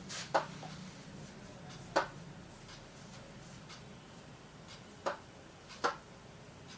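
Four sharp taps of a finger or pen on the glass of an interactive display board, spaced irregularly, over a faint steady room hum.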